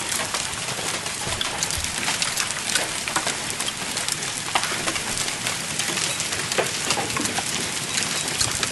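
Hail sound effect: hailstones falling hard, a dense steady hiss scattered with many sharp ticks of single stones striking.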